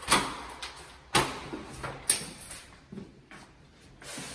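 Apartment front door's lock and handle being worked: three sharp clacks about a second apart as the door is unlocked and opened.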